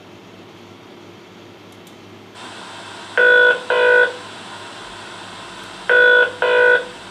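Telephone ring sound effect in a double-ring pattern: two short rings, a pause, then two more. It plays over a steady hiss of white noise with the bass filtered out, which comes in about a second before the first ring.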